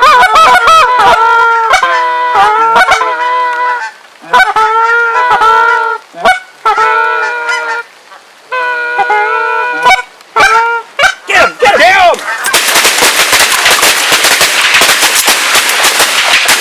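Canada geese honking and clucking, a rapid run of repeated calls with short gaps. For the last few seconds a loud, even rushing noise takes over.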